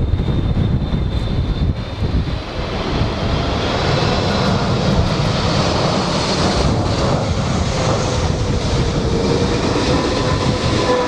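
Jet engines of a Boeing 777-300ER, its GE90-115B turbofans, running as the airliner flies low on approach, over heavy wind buffeting on the microphone. The engine noise swells about three seconds in, with whining tones that slowly drop in pitch near the end.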